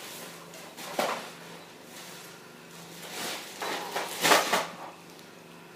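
Plastic parts of an old printer being handled during disassembly: a sharp knock about a second in, then a run of rattling and scraping, loudest about four seconds in, over a faint steady hum.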